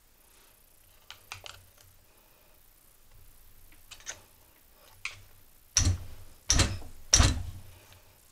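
Screwdriver tips clicking and scraping against the plastic throttle housing of a Homelite string trimmer as it is pried apart to free the trigger. Near the end come three loud knocks in quick succession.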